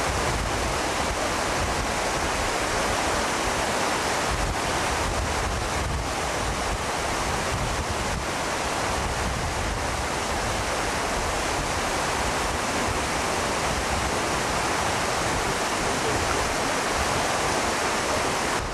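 Steady rushing outdoor noise, even and unbroken, with a low fluttering rumble underneath.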